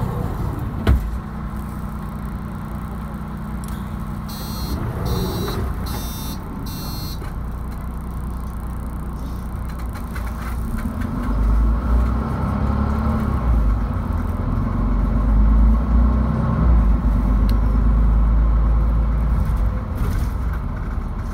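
Mercedes-Benz Citaro II city bus heard from inside while driving: its engine and drivetrain run with a steady low rumble, then from about eleven seconds in the engine comes under heavier load and grows louder and deeper as the bus accelerates. A single sharp knock comes about a second in, and four short high-pitched blips come around five to seven seconds in.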